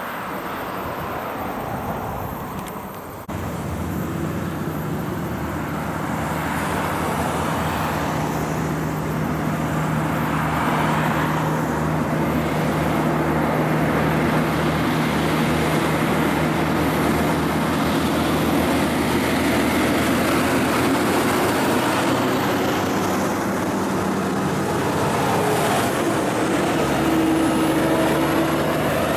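Heavy diesel truck engines pulling up a steep climb, one truck after another: a steady engine drone that grows louder as the trucks approach. The engine pitch shifts slightly near the end.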